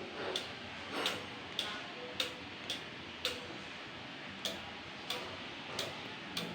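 A regular series of light, sharp ticks, a little under two a second, over a quiet background.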